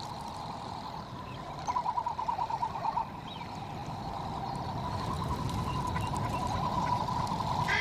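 Male frigatebirds calling in courtship display: a rapid pulsed warbling rattle, loudest in a burst about two seconds in. A steady low rumble beneath it grows toward the end.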